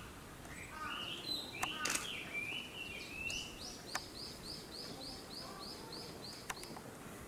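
Small birds chirping, then a run of about a dozen quick, evenly spaced high notes over about three and a half seconds, with a few sharp clicks.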